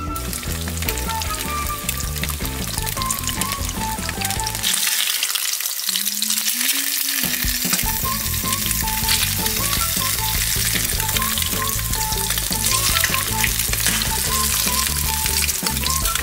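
Eggs sizzling as they fry in a nonstick frying pan; the sizzle grows louder about four to five seconds in. Background music plays underneath.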